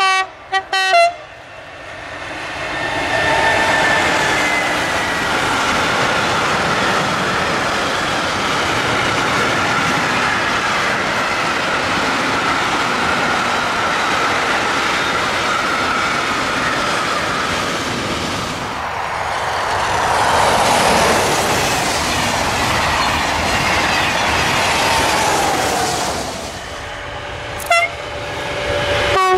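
Two short train-horn blasts from an electric freight locomotive, then a long freight train of tank, container and car-carrier wagons rolling past close by. The rolling noise is loud and even, with a steady high tone in it for the first half. Another brief horn blast comes near the end.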